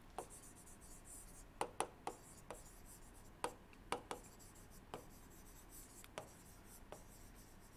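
Faint, irregular taps and short scratches of a stylus writing by hand on a pen tablet.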